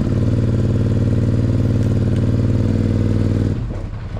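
A large vehicle engine running steadily at idle with a fast, even pulse. It drops abruptly about three and a half seconds in, leaving a quieter engine sound.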